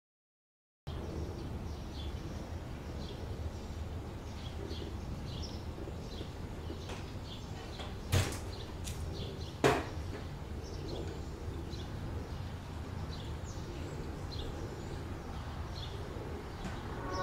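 Outdoor ambience with birds: a steady low rumble of background noise with faint, scattered bird chirps. Two sharp knocks stand out about eight and ten seconds in.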